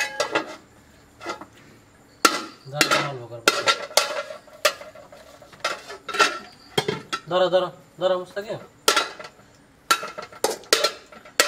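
Aluminium pot lids, a ladle and a metal serving spoon clanking and clinking against aluminium cooking pots in irregular sharp knocks, each with a short metallic ring. A child's voice babbles briefly past the middle.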